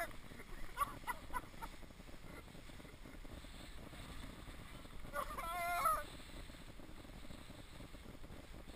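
Wind and water rushing past a windsurfer's boom-mounted action camera while the board sails through choppy water, with a brief high, wavering call about five seconds in.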